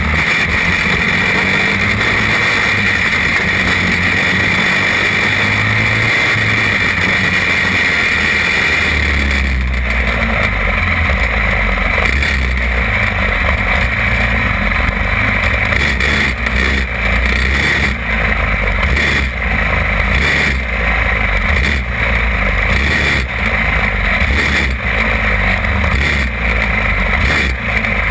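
Champ kart's small engine running hard at racing speed, heard from on board the kart. About a third of the way in the sound changes, with short regular dips in level from then on.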